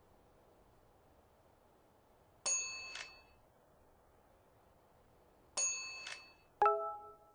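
Bell-like metallic dings: a high double ding about two and a half seconds in, the same double ding again about three seconds later, then a single lower-pitched chime that rings on briefly near the end. A faint steady hiss lies underneath.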